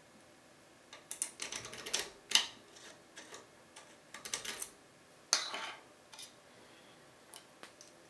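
Metal lockpicking tools clicking and scraping against a Bricard Supersureté lock cylinder as a flat tension tool and a lever pick are slid into its keyway. The sharp clicks come in three short clusters, with a few faint ticks near the end.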